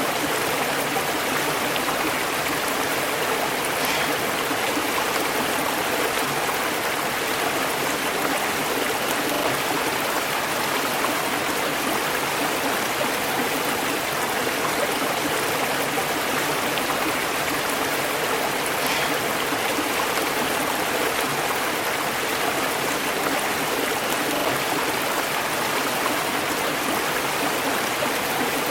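River water running steadily over stones, a continuous rushing and babbling without pause.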